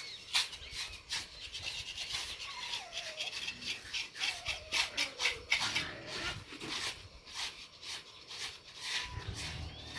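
A dog whining in wavering, rising and falling cries, over many short scraping or rubbing strokes.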